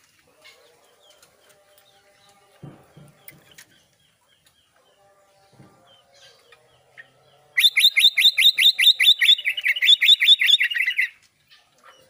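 Caged albino sooty-headed bulbul (kutilang) calling. About seven and a half seconds in, it gives a loud, rapid run of short repeated notes, about seven a second, lasting about three and a half seconds, with the notes dropping lower about halfway through. Before that there are only a few faint knocks.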